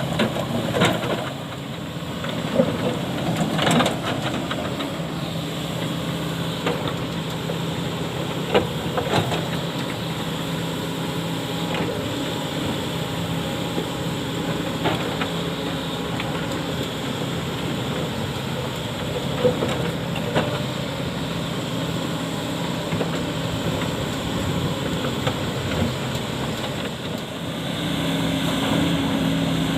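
Sany hydraulic excavator's diesel engine running steadily under load, with scattered sharp knocks and scrapes of the bucket digging into hard rock. Near the end the engine rises in pitch and gets louder as it revs up.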